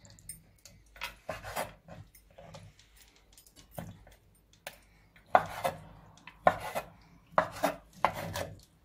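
Kitchen knife knocking and scraping on a wooden cutting board, with some clatter of dishes. The knocks come irregularly, sparse at first and louder and closer together in the second half.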